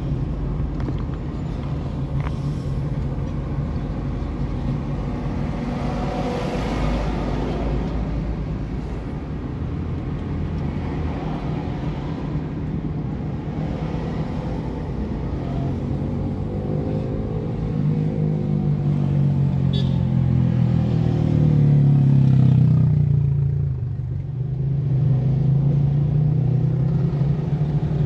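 Car engine and road noise heard from inside the cabin while driving. The engine note rises steadily as the car accelerates from about two-thirds of the way in, then drops suddenly and settles back to a steady hum.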